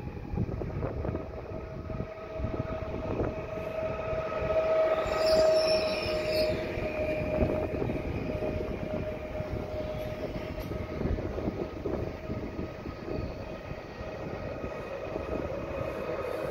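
Koleje Wielkopolskie EN76 electric multiple unit (PESA Elf) running along the platform: a steady rail rumble with a high, even whine through most of it, loudest about five seconds in.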